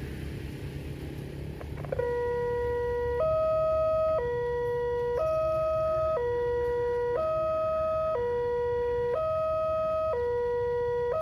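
Indonesian railway level-crossing warning alarm starting about two seconds in. It is an electronic two-tone signal that switches between a lower and a higher note about once a second, sounding as the barrier arms come down and warning that a train is approaching. A low rumble of background noise runs underneath.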